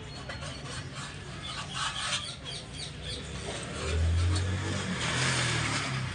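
A low engine hum swells loudly about four seconds in, its pitch rising slightly near the end, over busy background noise with short high chirps and ticks.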